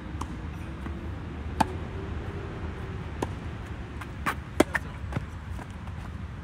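Tennis rally: rackets striking the ball and the ball bouncing on the court, a string of sharp pops about a second apart, the loudest two close together about four and a half seconds in.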